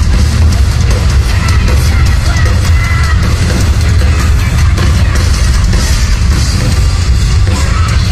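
Rock band playing live and loud: pounding drums and heavy bass under distorted guitars, a dense wall of sound with a voice-like line wavering above it.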